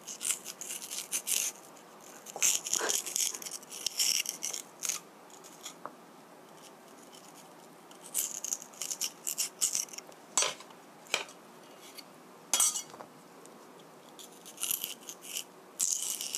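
A small knife carving into a raw potato slice held in the hand, cutting out its hollow, hard core: bursts of short crisp scrapes and cuts with a few sharp clicks and pauses between.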